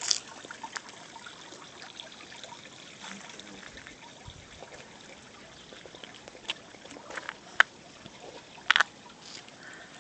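Water trickling into water, with scattered sharp drip-like ticks, the loudest two near the end.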